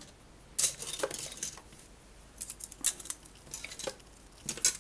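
Plastic model-kit sprues clicking and clattering against each other as a handful is lifted out of the box, in irregular clusters of light clacks.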